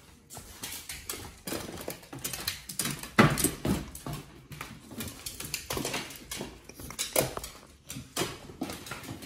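Pit bull puppy excited over its food, claws clicking and scrabbling on a tile floor in quick irregular taps, with a louder burst of dog noise about three seconds in.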